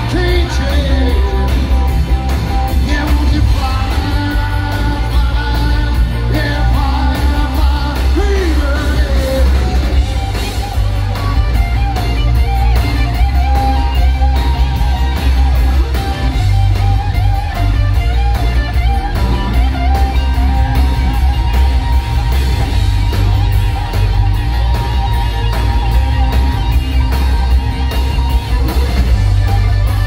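Live rock band playing loud through a PA, with electric guitars, bass and drums and a voice singing over them, heard from within the crowd.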